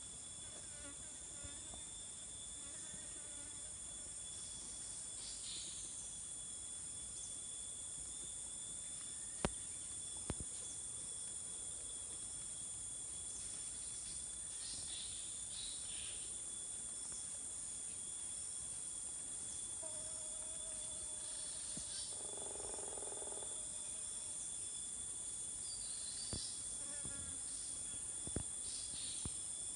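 Tropical forest insect chorus: a steady high-pitched drone with a thinner steady tone beneath it, and short chirps coming and going. A few faint clicks stand out, and a brief lower call comes about two-thirds of the way in.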